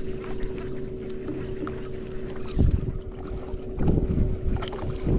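Steady electric hum of a small motor on a bass boat, one even tone, with low buffeting of wind on the microphone that swells about two and a half seconds in and again near four seconds.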